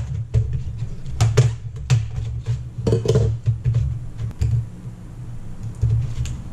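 Irregular plastic clicks and knocks of a laptop being taken apart by hand, its case and keyboard being handled and unclipped, over a low steady hum.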